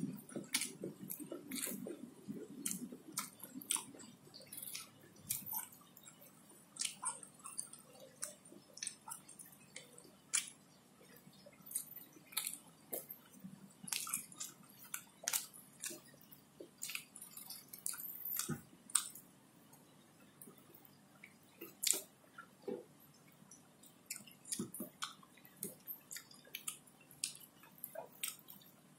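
A man eating fried catfish and rice by hand, chewing close up, with frequent small wet clicks from his mouth and the food.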